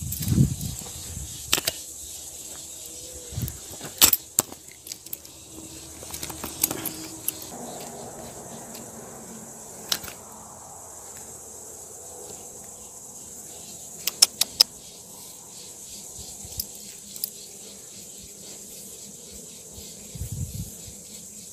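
Sharp clicks and clatter of a phone being handled, with a cluster of rapid clicks about two-thirds of the way in, over a steady high hiss. A low rumble comes near the end.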